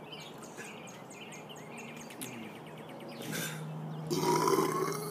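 A man lets out a loud burp lasting about a second, about four seconds in, over faint bird chirps.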